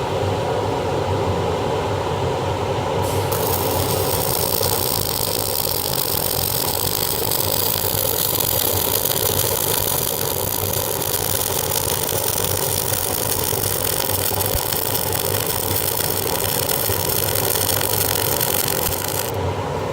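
Flux-cored arc welding on 316L stainless steel: the arc strikes about three seconds in and runs steadily as a fillet weld is dragged along, then cuts off shortly before the end. A loud fume extractor runs steadily underneath.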